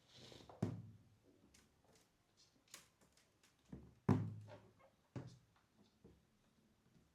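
Kittens at play making a few dull thumps and light knocks, with a brief rustle at the start; the loudest thumps come about half a second in and about four seconds in.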